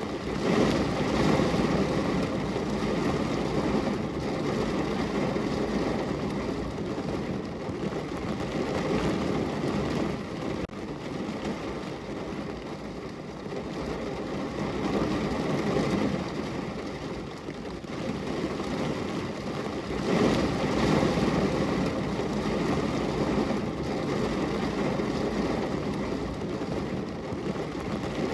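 Rain on a window with a steady hiss and a low rumble underneath that swells and eases every few seconds.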